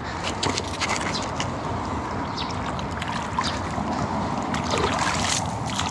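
Steady wind and water noise with many light clicks and knocks scattered through it.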